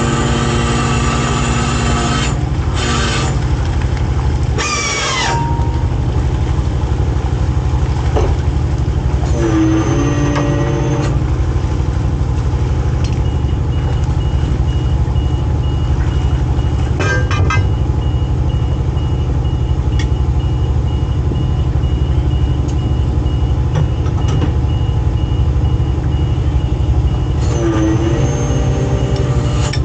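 Purse seiner's diesel engine running steadily with a heavy low rumble. Whines rise and fall three times over it, and from about halfway through a high beep repeats at an even pace.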